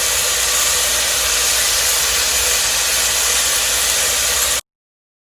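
Sliced onions and salt sizzling steadily in hot olive oil in a pressure cooker; the sound cuts off abruptly near the end.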